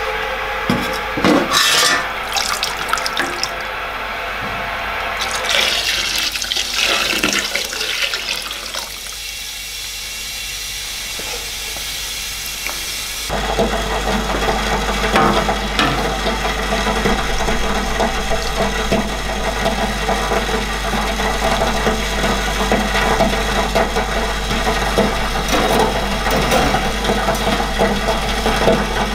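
Cleaning liquid poured from a plastic jug into the stainless tank of an ultrasonic cleaner. About thirteen seconds in the cleaner switches on suddenly and runs with a steady buzzing hum over the bath, with a few light knocks.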